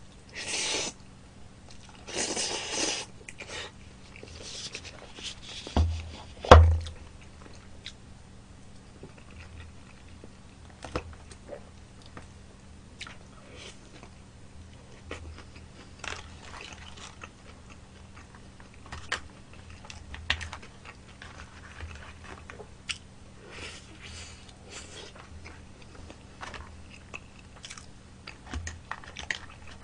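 Close-miked eating: cream pasta noodles slurped in two bursts near the start, two thumps about six seconds in, the second the loudest sound, then steady chewing and biting with small clicks of a plastic fork.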